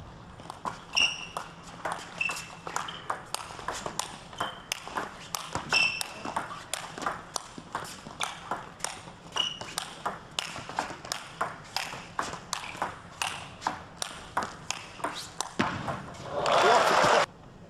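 A long, fast table tennis rally: the ball clicks sharply off the paddles and the table about three times a second, with occasional short squeaks of shoes on the court floor. A loud burst of crowd noise breaks out near the end.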